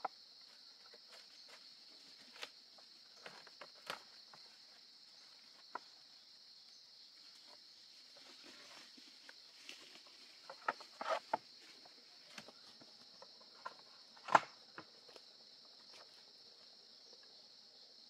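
Scattered knocks and clicks of bamboo poles being handled and fitted on a lashed bamboo trap gate, a small cluster around eleven seconds in and the loudest single knock about fourteen seconds in. A steady high-pitched drone of insects runs underneath.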